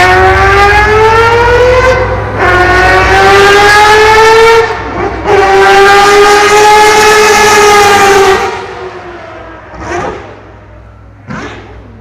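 Mazda 787B's four-rotor R26B rotary engine at high revs under acceleration: a loud, high-pitched wail rising in pitch, broken twice by short dips like gear changes, then held high before dying away. Two short blips follow near the end.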